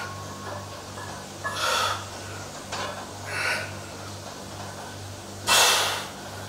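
A man breathing out hard while bench-pressing a barbell: three forceful exhalations about two seconds apart, the last one longest and loudest, over a steady low hum.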